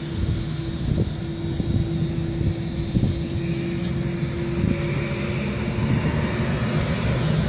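Boeing 787 Dreamliner's jet engines running as the airliner rolls along the runway: a deep rumble with a steady hum. A fainter, higher whine comes in about halfway through.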